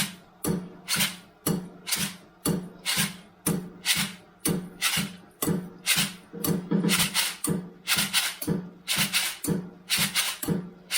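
A steady percussive beat, about two hits a second. Each hit has a low pitched thud under a bright crack, as in a found-sound jam.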